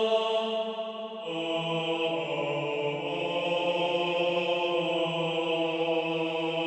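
Background music: a sustained, chant-like drone chord that moves to a new chord with a lower bass note about a second in, then holds steady.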